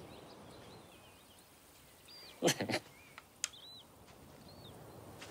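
Small birds chirping faintly in the background, with a brief louder sound about two and a half seconds in and a single sharp click about a second later.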